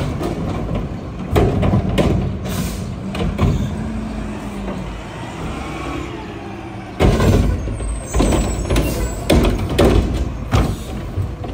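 Mack LR garbage truck with a Curotto-Can automated arm at work: the engine running under several sharp bangs and clatters of a plastic cart being tipped and dumped into the hopper, with a rising then falling hydraulic whine in the middle and short hisses of air from the brakes.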